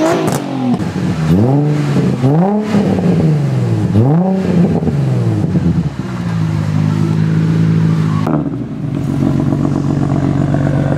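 Car engine revved in a series of throttle blips, its pitch rising and falling about five times, then settling to a steady idle. The engine is warm, having been driven minutes before. Near the end the sound changes abruptly to a different steady engine note.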